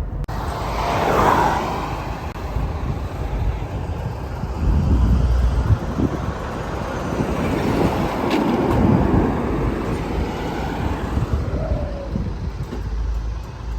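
Road vehicle noise: a steady low rumble of engine and tyres, swelling about a second in and again around eight to nine seconds in.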